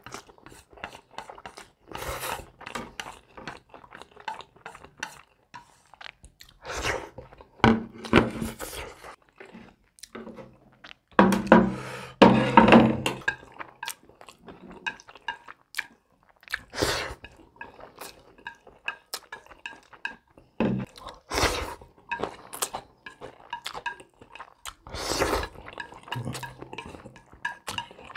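Close-miked eating: chewing and slurping spaghetti, with chopsticks clicking and scraping against a ceramic plate in irregular taps, and a few louder stretches of eating.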